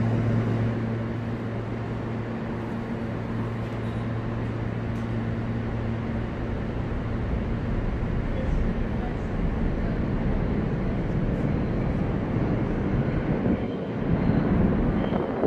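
R160 subway train standing in the station with its doors open, giving a steady low electrical hum over rumbling station noise. The hum fades about halfway through, and the general noise swells briefly near the end.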